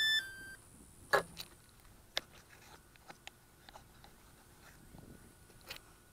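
A short electronic beep that drops in pitch partway through, then scattered sharp clicks and taps, the loudest about a second in, with no motor running.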